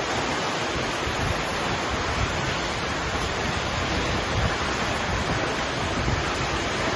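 Heavy rainstorm: a steady, dense hiss of downpour, with some wind.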